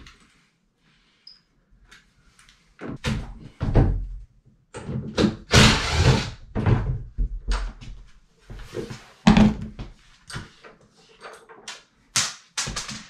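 Irregular knocks and thuds of a hinged interior door and its hardware being worked on as the door is taken down from its frame.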